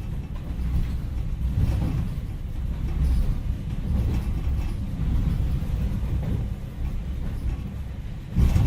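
A low, continuous rumble that swells and eases every second or two, from a sound-effect track laid over the footage rather than recorded in the scene.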